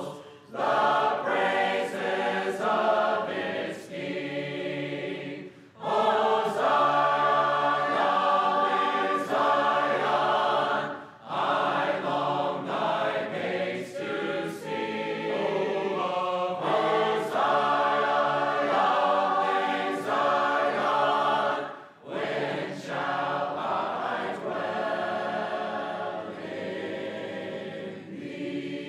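A congregation of men and women singing a hymn about Zion a cappella, with no instruments, in several voice parts. The lines are sung phrase by phrase, with brief breath pauses between them.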